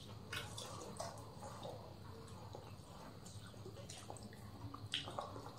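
Faint wet sounds of eating by hand: fingers mixing rice with mutton curry on a banana leaf, with scattered short clicks and smacks, the loudest about five seconds in.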